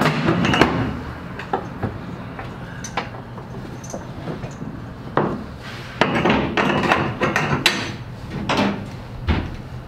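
Motorcycle tie-down straps and their metal hooks and buckles being handled and pulled tight, with irregular clicks, knocks and short rattling bursts off the floor and walls of an enclosed trailer.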